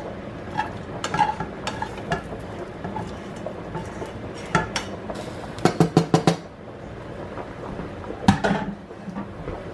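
Cookware clatter as browned ground beef is scraped and knocked out of a nonstick skillet into a saucepan: scattered clicks and scrapes on the pans, a quick run of about six knocks a little past halfway, and one louder clunk near the end.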